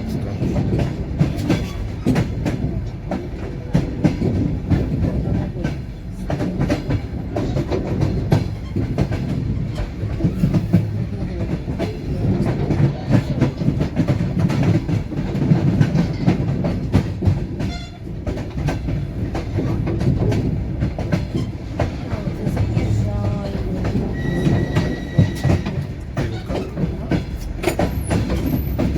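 Passenger train's wheels clattering over rail joints at speed with a steady low rumble from the running carriage. A brief high steady tone sounds near the end.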